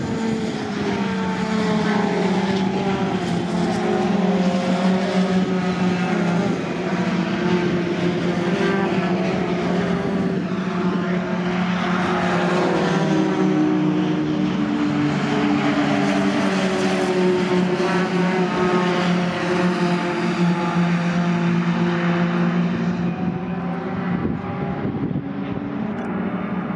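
Racing pickup trucks' engines running at full race pace as several trucks pass close by. Their overlapping notes keep rising and falling in pitch without a break.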